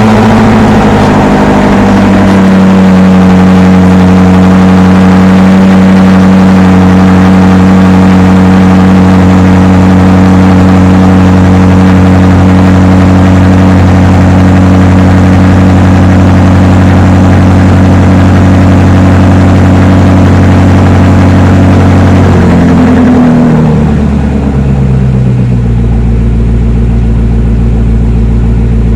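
BMW X5 M Competition's S63 twin-turbo V8, breathing through a GCA titanium valved exhaust, held at a steady raised rev for about twenty seconds. Near the end the revs fall and it settles to a low, steady idle.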